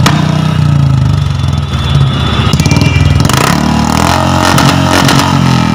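Royal Enfield Bullet single-cylinder engine running and being revved through a modified aftermarket 'firecracker' silencer, loud, with a few sharp bangs near the start and about three seconds in.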